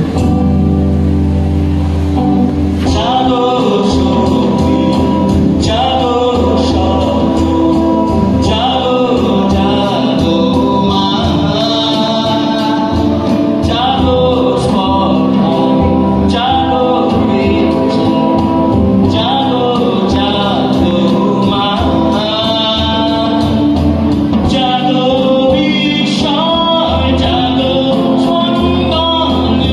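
Amplified live band music: a man singing a song into a microphone over electric guitar and drum kit, played through a PA.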